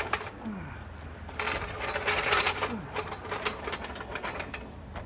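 Fast metallic rattling and clicking for about three seconds, loudest about halfway through, from a steel floor jack being moved and worked into position under a heavy truck.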